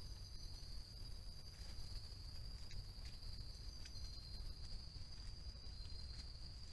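Insects, such as crickets, chirring in one steady high note throughout, with a few faint scattered clicks and a low rumble beneath.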